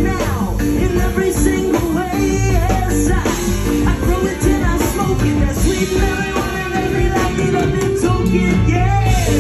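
Live rock band playing loudly: electric guitars over drums, heard from within the audience.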